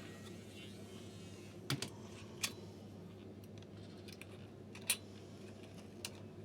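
A few light, separate clicks and taps, about five in all, from small parts and a tool being handled during a hairdryer service, over a faint steady hum.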